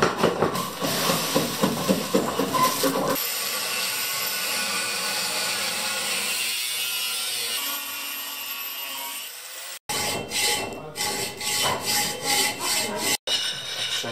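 Rhythmic strokes of a hand plane shaving a wooden wind-turbine rotor blade, then from about three seconds in an angle grinder running on steel, a steady hiss with a faint high whine, for about six seconds. Near the end, rhythmic scraping strokes of a hand tool on metal held in a bench vice.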